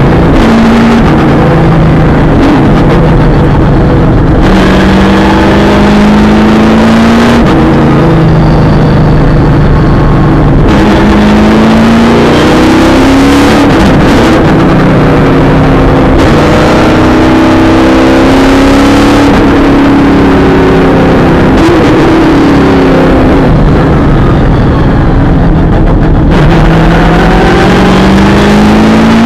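V8 supercar engine heard loud from inside the cabin, driven hard around a circuit: the engine note climbs as it accelerates and drops back sharply at each gear change, with stretches where it falls away between bursts of acceleration.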